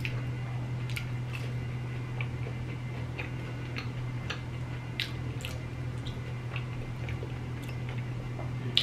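Close-up chewing of crispy lemon pepper fries dipped in sauce: scattered small wet mouth clicks and crunches about once or twice a second, over a steady low hum.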